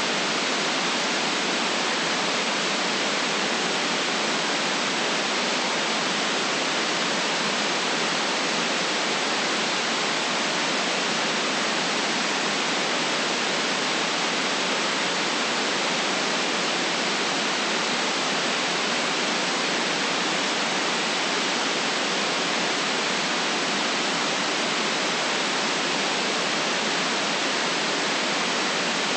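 Steady white noise: an even, unchanging hiss with no bass and no change in level.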